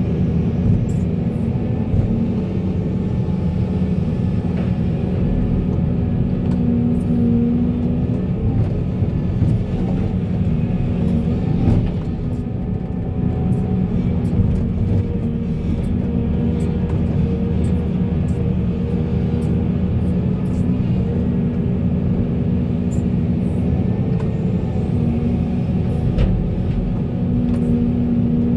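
Volvo excavator's diesel engine running steadily at working speed, its note swelling in short stretches as it takes load, with a few faint clicks.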